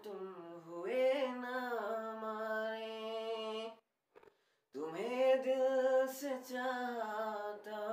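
Man singing a Hindi song unaccompanied. He holds long notes with a slight waver, and stops for about a second midway before singing again.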